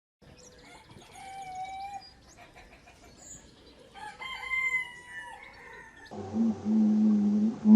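Rooster crowing twice with some clucking between, fairly faint. About six seconds in it cuts to a much louder, low, drawn-out sound.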